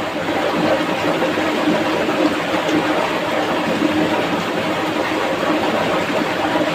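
Fast-flowing shallow stream rushing over rocks and a small ledge: a steady, unbroken rush of water.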